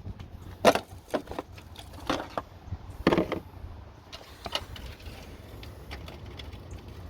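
Scattered clicks and knocks, about half a dozen, the loudest a little under a second in and around three seconds in: hands and tools working loose a plastic box in a car's engine bay.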